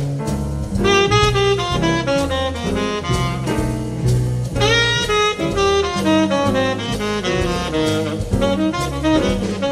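Small jazz group playing: a saxophone carries the lead line over piano, upright double bass and drum kit.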